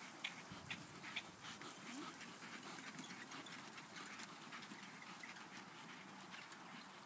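Faint clicks and rattles of a small horse's hooves and its two-wheeled driving cart trotting past, growing fainter as the horse moves away.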